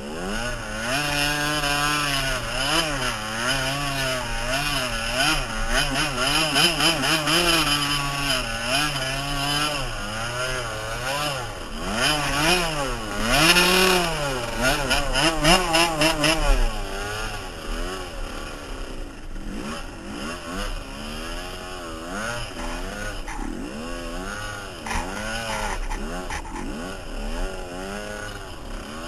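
Suzuki RM 80 dirt bike's small two-stroke single-cylinder engine revving up and down over and over as the bike is ridden through snow, its pitch rising and falling every second or so. It runs loudest in the first half and drops to lower, choppier revs after about halfway.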